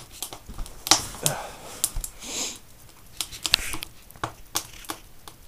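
A wood fire crackling in the open firebox of a small wood stove, with irregular sharp snaps.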